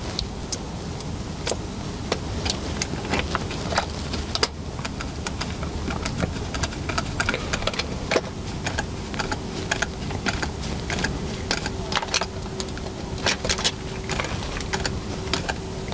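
A screwdriver turning an 8 mm countersunk self-tapping screw into a 3D-printed plastic wagon body to fix a bogie, with irregular small clicks and taps from handling the parts over a steady low hum.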